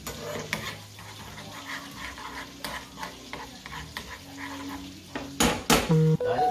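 A metal spoon stirring and scraping minced garlic in butter in a small frying pan, clicking against the pan over a light sizzle. Two loud knocks come near the end.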